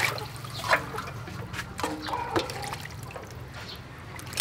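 Water trickling and dripping in a metal basin while fish are washed, with a few light knocks and clinks of stainless-steel bowls.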